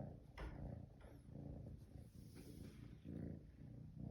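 A young cat purring close by: a low, pulsing purr in repeated swells, with one light tap about half a second in.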